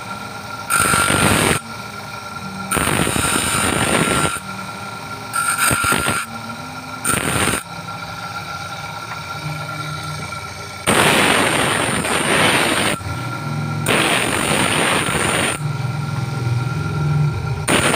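Motor-driven grinding wheel running with a steady whine, as a monel ring is pressed against it in about seven harsh grinding bursts, each from half a second to two seconds long. The ring is being trimmed smooth after welding.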